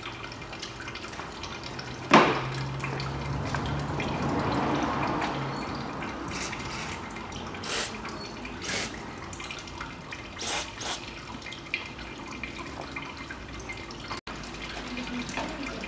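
Aerosol can of penetrating lubricant sprayed in several short hissing bursts onto rusted exhaust downpipe flange bolts to free them, with a sharp click about two seconds in.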